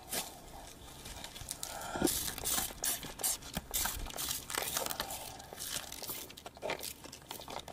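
Plastic water bottle crinkling and crackling as it is squeezed and handled, in irregular bursts and clicks.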